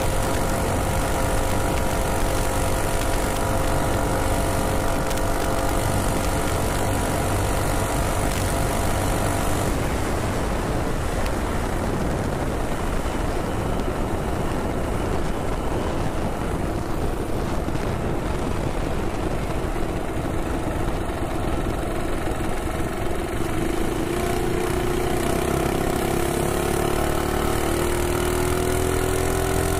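Predator Ghost 212cc single-cylinder four-stroke minibike engine running steadily at high speed, then backed off about ten seconds in so the bike coasts and slows under the rush of wind. Near the end the throttle opens again and the engine note rises as the bike picks up speed.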